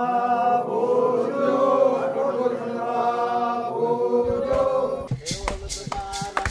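Group of voices chanting in long held notes. About five seconds in, drums and rattling percussion come in.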